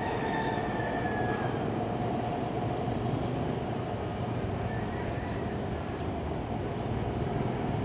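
Steady outdoor background noise, a constant low rumble with hiss, with a faint high tone in the first second and a half.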